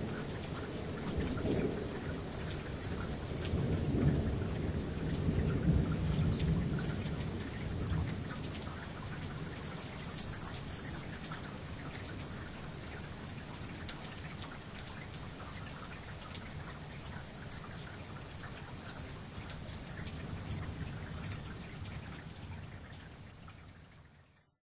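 Steady rain with a low rumble of thunder rolling through the first several seconds, then even rain hiss that fades out at the end.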